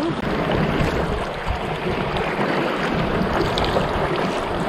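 Steady splashing and sloshing of seawater around a kayak as it is paddled.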